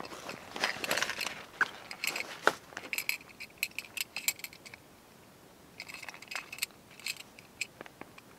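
Rustling with a run of small clicks and clinks, as of gear being handled, busiest in the first half and sparser later on.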